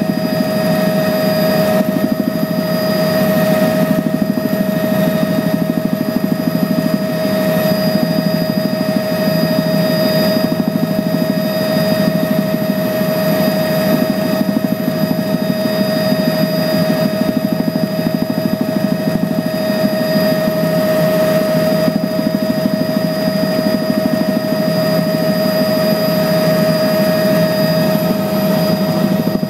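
Steady engine and rotor or propeller noise heard inside the cabin of a small aircraft in flight: an unbroken whine over a low rumble, with no change in pitch or level.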